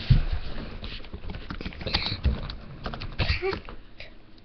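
Irregular taps, clicks and knocks of hands handling things on a desk, loudest at the very start and dying down toward the end.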